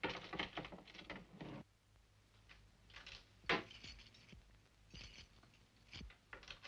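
Faint scraping and small metallic clicks of a door lock being worked at by hand, with one sharp click about three and a half seconds in.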